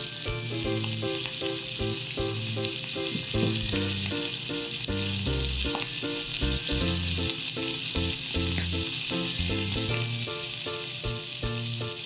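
Pork belly slices sizzling steadily as they fry in oil in a frying pan, under background music of short, evenly paced notes.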